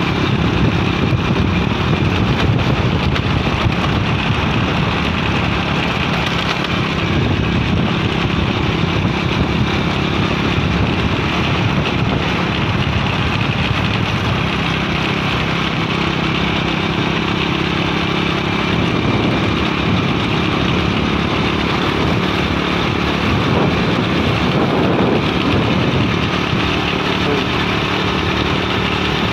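Small motorcycle engine running steadily while being ridden, with a slight rise and fall in pitch.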